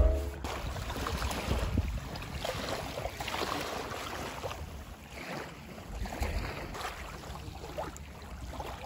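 Small lake waves lapping and washing onto a sandy beach, with a light wash of wind.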